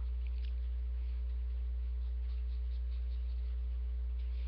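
Steady low electrical hum, with faint soft scratching from a fine paintbrush working on the painting.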